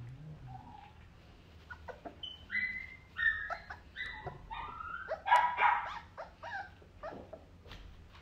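Young puppy making a string of short, high-pitched cries, many falling in pitch, loudest about five seconds in.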